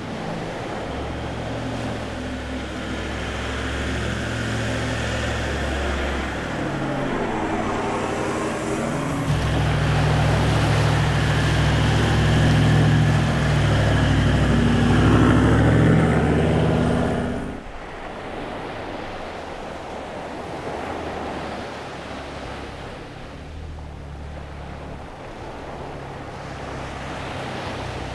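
Toyota 79 series LandCruiser engine running as the truck drives on soft beach sand, growing louder as it passes close and then cutting off abruptly about two-thirds of the way through. After that a Jeep JK Wrangler's engine is heard more faintly, getting louder towards the end as it approaches along the sand.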